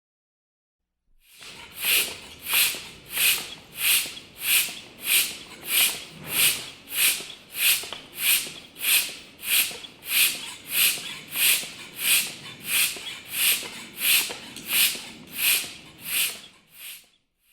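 Hacksaw cutting metal: steady, even back-and-forth strokes, about one and a half a second, starting about a second in and stopping abruptly near the end.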